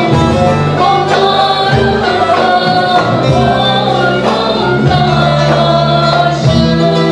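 A woman sings a Turkish folk song (türkü) into a microphone, accompanied by bağlama and acoustic guitars over a steady bass line.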